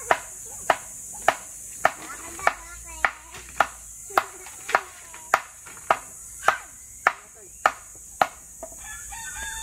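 Bamboo culm being struck over and over with a blade, about sixteen sharp chops spaced a little over half a second apart, each with a short hollow ring: the bamboo is being cracked along its length to open it into flat strips for wall panels. A rooster starts crowing near the end.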